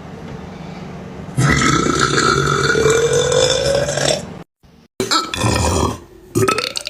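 A man burping: one long, drawn-out belch of about three seconds, starting about a second and a half in, its pitch rising steadily throughout. After a short cut to silence, another loud burp begins about five seconds in.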